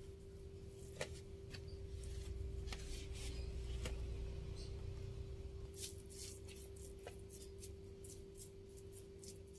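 Metal spoon scraping squeezed, crumbled tofu off a cloth into a plastic bowl, with soft handling sounds and a few light clicks, then a run of quick light clicks and scrapes in the second half as the spoon works through the tofu in the bowl. A steady low hum sits beneath it all.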